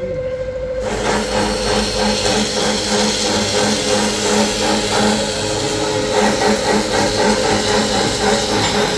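PLC400 automatic cutting machine, converted from an MC 400, running through a cut: a steady motor-driven noise with a regular pulsing that starts about a second in.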